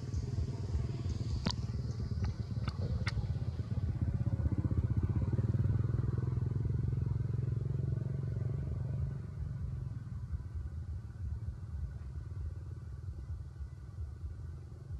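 A low engine rumble from a passing motor vehicle, building to its loudest around the middle and fading after about nine seconds. A few sharp clicks come in the first three seconds.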